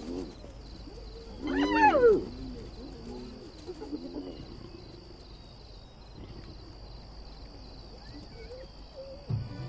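Spotted hyenas calling at a kill that lions are moving in on. One loud call rises and falls in pitch about one and a half seconds in, and fainter calls follow.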